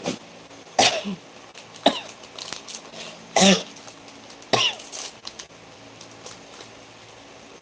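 Dry coughing from a person with a respiratory cold: four separate coughs over about four seconds, the third the loudest.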